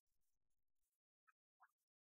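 Near silence: only a faint hiss.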